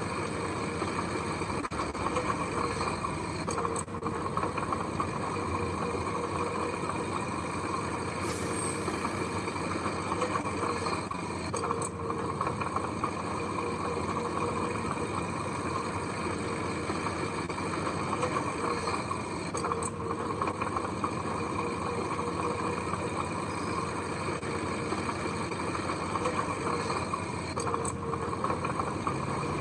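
Diesel engines of heavy earth-moving machinery, a dump truck and bulldozer, running steadily. A brief hiss of air sounds about eight seconds in.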